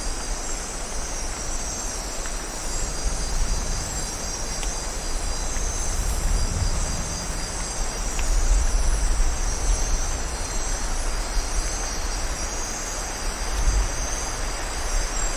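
Steady rain in tropical rainforest at night, with deep distant thunder rumbling in slow swells and a steady high chorus of night insects.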